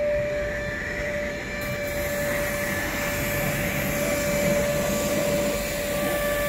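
Steady whine of a running motor, one constant tone over a wash of noise, as from car wash machinery.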